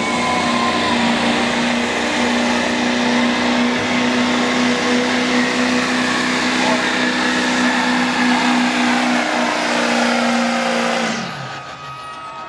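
Chevrolet Silverado's Duramax diesel engine at full throttle, pulling a weighted sled: a loud, steady drone with a high whine. About eleven seconds in the driver lets off, and the sound drops and falls in pitch.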